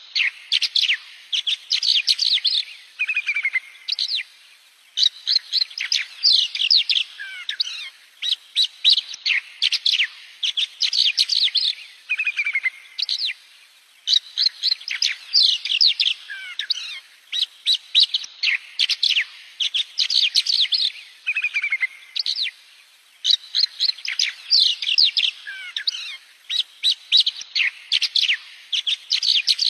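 A songbird singing: phrases of rapid, high chirps and trills, each a few seconds long and each with a falling slurred note in it, repeated over and over with short pauses between.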